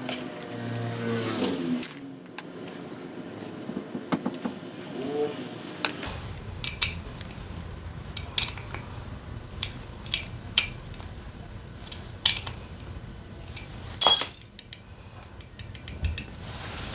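Metal hand tools and engine parts clinking and clattering in a run of sharp, irregular clicks, with a louder metallic clatter about fourteen seconds in.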